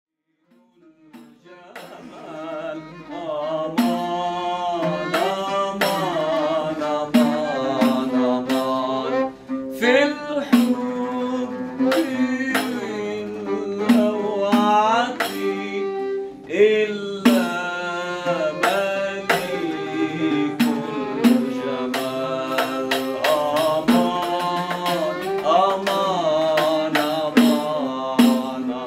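Oud played solo in a Middle Eastern style: quick plucked notes, many sliding in pitch, over a low repeated note. The music fades in over the first few seconds.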